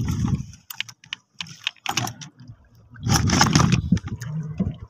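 Scattered light clicks and knocks from handling the squid and fish catch in a plastic tub, with a louder stretch of handling noise about three seconds in.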